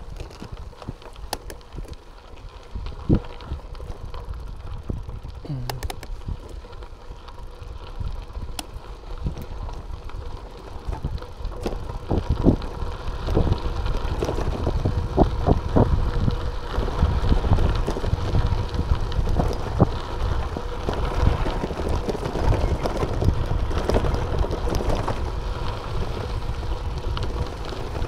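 Bicycle rolling over a rough gravel track: tyres crunching on loose stones and the bike rattling with frequent short knocks over a low rumble. It grows clearly louder from a little before halfway.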